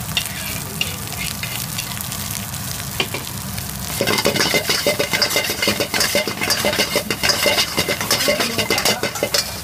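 Mushroom fried rice sizzling in a hot wok. About four seconds in, a metal spoon starts stirring and tossing the rice, scraping against the wok in quick, irregular strokes that are louder than the sizzle.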